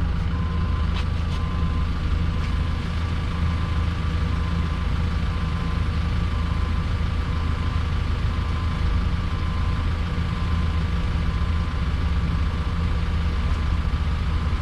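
Diesel engine of a Yale 175 forklift idling steadily, a low, even hum with a faint high tone above it.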